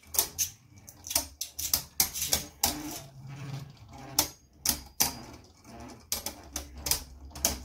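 Two Beyblade Burst spinning tops, Wizard Fafnir and Solar Sphinx, clashing in a plastic stadium: a rapid, irregular run of sharp plastic clicks as they strike each other, over the low whir of the tops spinning on the stadium floor.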